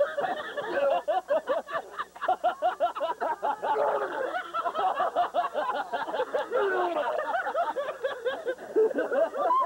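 People laughing and snickering, with a run of quick, evenly repeated laughing pulses from about a second in.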